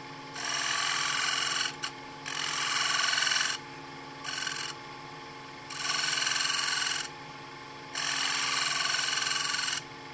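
Woodturning lathe running with a steady hum while a standard scraper, tilted on edge, shear scrapes the outside of a spinning wooden platter. There are four passes of a scraping hiss, each about a second and a half long, with a shorter light touch in the middle. These are light-pressure finishing cuts for a clean surface.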